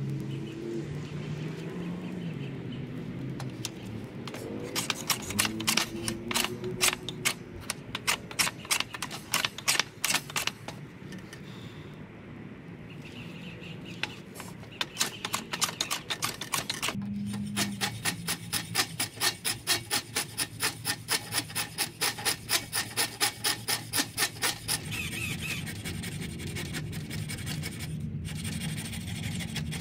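Runs of quick, even scraping strokes of a hand tool shaping wood, about two to three strokes a second, with a short pause partway through.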